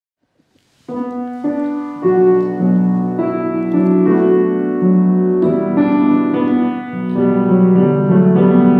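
Grand piano playing after about a second of near silence: a slow introduction of chords under a melody.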